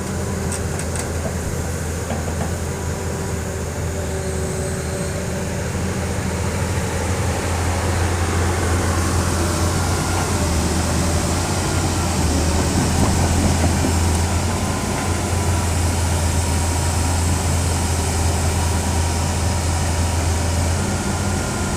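Hitachi hydraulic excavator's diesel engine running steadily with a deep drone, growing louder through the middle and easing slightly near the end, with faint steady whining tones on top.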